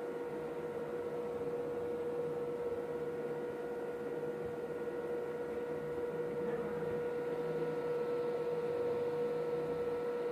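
INVT variable-frequency drive of a solar submersible pump running, giving a steady electrical hum: one constant mid-pitched tone with fainter higher tones over an even background noise.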